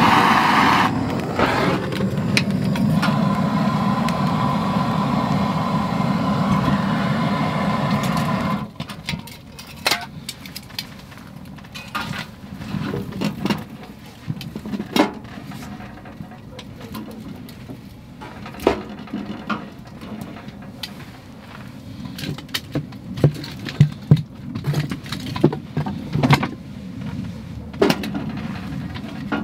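Butane gas torch running with a steady hiss for about eight seconds, lighting kindling in a wood stove, then cut off abruptly. Scattered sharp crackles and clicks follow as the kindling catches.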